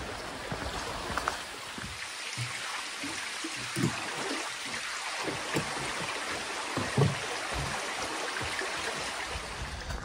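Shallow mountain creek running over rocks, a steady rushing babble, with a few soft low thumps scattered through it.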